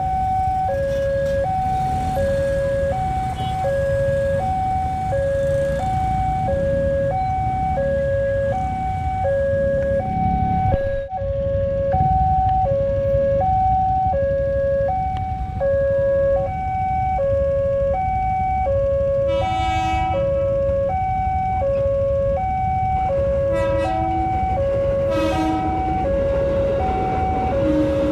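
Electronic railway level-crossing warning alarm sounding from the pole loudspeaker, a repeating two-tone ding-dong of alternating lower and higher notes about once a second. It plays over the steady rumble of waiting motorcycles and traffic, with a few short horn blasts about two-thirds of the way through.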